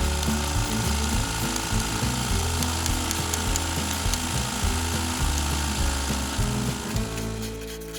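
Zenoah G250 chainsaw running and cutting wood, with background music underneath; the saw fades out about seven seconds in.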